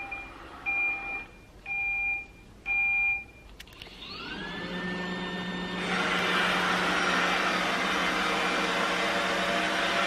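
iRobot Roomba 960 robot vacuum gives three short beeps, then its motor spins up with a rising whine about four seconds in, and from about six seconds its vacuum runs steadily as it sets off cleaning.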